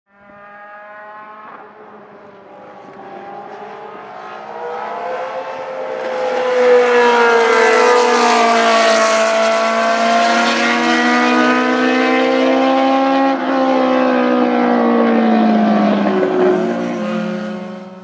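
1980 Ligier JS11 Formula 1 car's Ford Cosworth V8 running at racing speed, its note rising and falling in pitch again and again. It grows loud over the first six seconds and stays loud.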